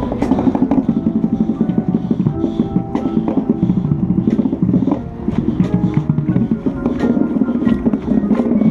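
Indoor percussion ensemble performing, heard close to the marching tenor drums: fast, dense drum strokes over held pitched notes.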